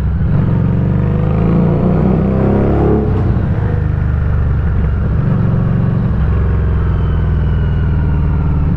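Harley-Davidson Street 500's liquid-cooled V-twin engine running, its pitch gliding up and down over the first few seconds and then holding steady.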